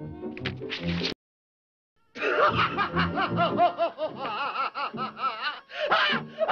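Cartoon cat laughing in long runs of rapid, wavering cackles over orchestral music. The sound cuts out completely about a second in and comes back about a second later.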